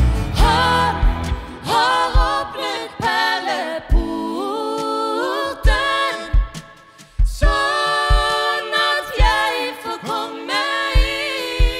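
Two women's voices singing a hymn together in harmony without guitar, over a soft low thump that keeps the beat. The singing breaks off briefly a little past halfway, then resumes.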